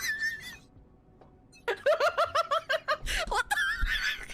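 Person laughing in a quick, high-pitched run of short "ha"s, several a second, starting after a brief hush about one and a half seconds in.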